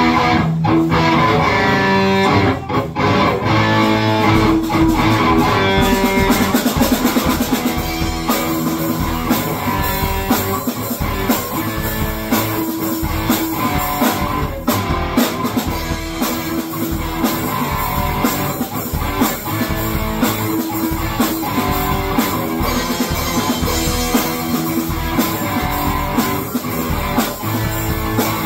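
Live rock jam of an electric guitar with a drum kit. The cymbals fill in more fully about eight seconds in.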